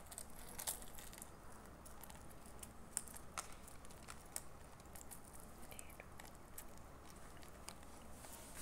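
Faint, scattered light clicks and small handling noises over a low steady room hum, as of earring cards and plastic jewellery packets being moved about.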